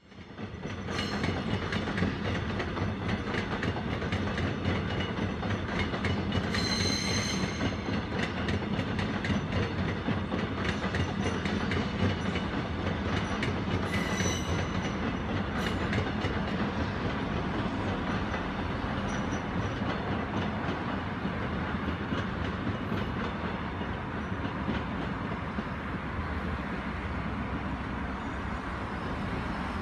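A train running along the tracks, its wheels clicking steadily over the rail joints, with two brief high-pitched wheel squeals, about a quarter of the way in and again near the middle.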